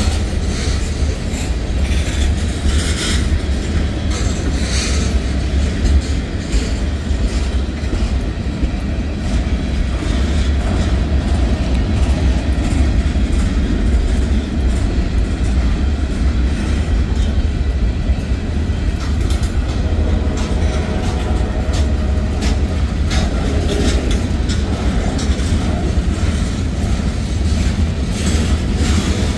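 Freight cars of a mixed manifest train rolling past: a steady low rumble of steel wheels on the rails, with repeated clicks and clanks from the wheels and cars.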